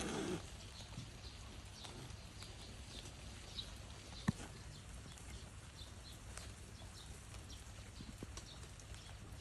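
Faint, high-pitched squeaks repeating every fraction of a second from young animals hidden under a deck, with a single sharp knock about four seconds in.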